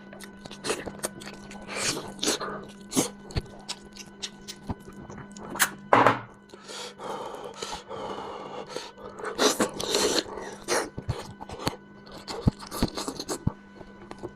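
Close-up eating sounds from spicy lamb head: many short wet clicks and smacks, with louder sucking bursts about six seconds in and again near ten seconds.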